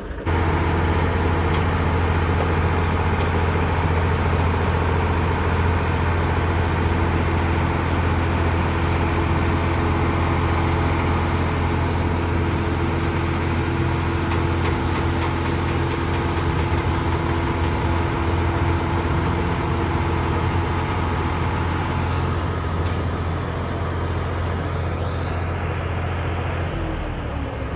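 Dump truck's engine run up to drive the hydraulic tipper as its bed lifts to unload a load of sand: a steady loud engine hum that comes in suddenly at the start, holds, and drops off near the end.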